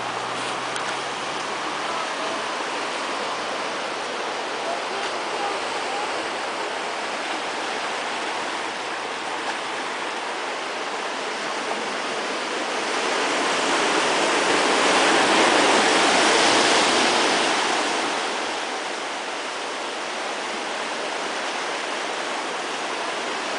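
Surf washing over a rocky shore: a steady rush of water that swells louder for a few seconds about halfway through, then settles back.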